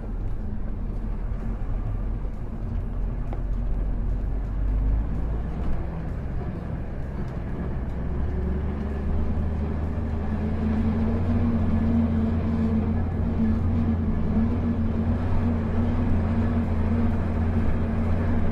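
A tour coach's diesel engine running steadily at low speed with a low drone. Its note steps up slightly about five seconds in.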